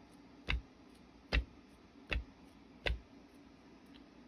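Filled silicone mold of Resincrete knocked down on the work surface, four sharp thuds about one every 0.8 s, to bring trapped air bubbles up out of the fresh mix.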